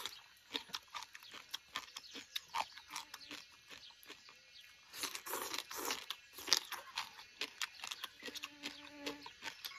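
Close-up chewing and crunching of a mouthful of rice, chili chicken and crisp vegetables, with many short wet mouth clicks.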